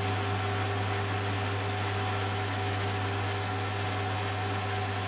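Metal lathe running with its chuck spinning while a cutting tool turns down a cast iron piston blank: a steady motor hum with two constant higher tones over an even cutting noise.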